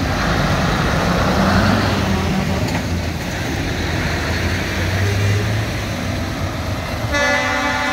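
Heavy lorries' diesel engines running as they pull slowly past on a wet road. Near the end a truck's air horn gives one short blast.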